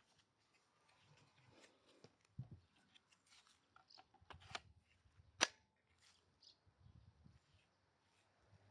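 Scattered light clicks and taps of something being handled, with one sharp click about five and a half seconds in.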